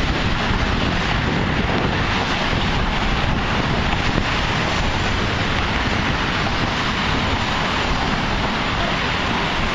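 Steady wind buffeting the camera microphone, a constant rumbling hiss with no let-up.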